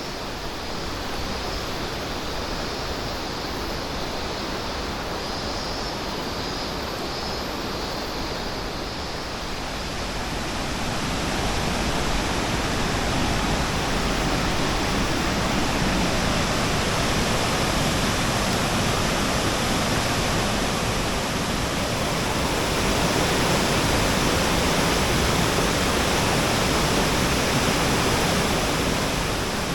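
Waterfall and rushing mountain stream: a steady roar of falling water that grows louder about ten seconds in.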